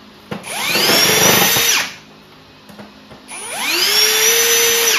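Cordless drill driving screws into the plastic base plate of a poly beehive: two runs of the motor, each whining up in pitch and then holding steady, with a short pause between them.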